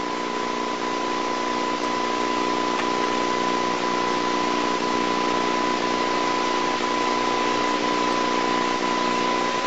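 Steady hiss with a constant high whine and a low hum, unchanging throughout: the background noise of an old videotape recording, with no other sound.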